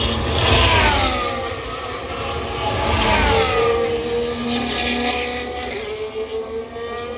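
Two Formula 1 cars, 1.6-litre turbo V6 hybrids, passing at speed about two and a half seconds apart. Each engine note drops in pitch as the car goes by, and a steadier engine tone carries on after the second pass.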